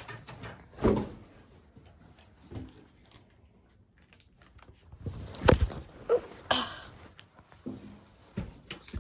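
Scattered knocks and thumps, the loudest a sharp knock about five and a half seconds in, followed by a few brief squeaky sounds.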